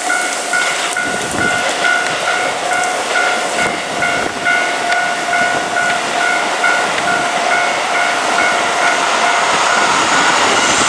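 Japanese level-crossing warning bell ringing in a fast repeating ding over the loud running noise of a Keikyu train passing the crossing. The bell dies away near the end while the train noise grows.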